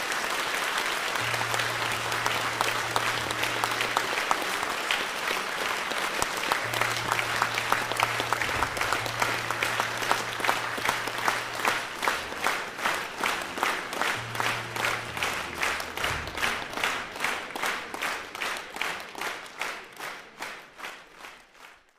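Audience applauding. About halfway through, the scattered clapping turns into rhythmic clapping in unison, about three claps a second, which then fades.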